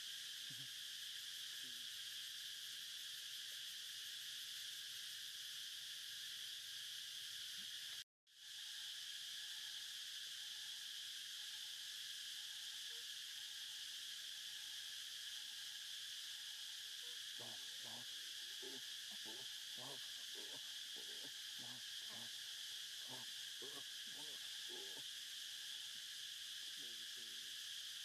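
Steady chorus of insects (crickets or cicadas) droning without a break. It cuts out for a moment about eight seconds in. In the second half there is a run of soft low pulses, about two a second.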